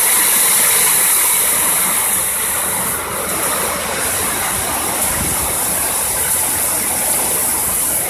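Heavy rain pouring down in a hard, steady downpour: a loud, even hiss.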